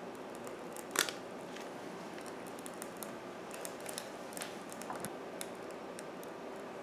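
Quiet room hum with one sharp click about a second in, then scattered light metallic ticks and clinks as a stainless steel wire rack and a small cast iron skillet are handled and set in place.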